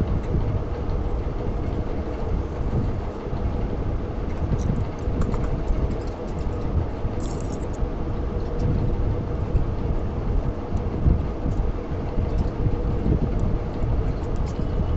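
Steady low rumbling noise with a faint steady hum and a few faint scattered clicks.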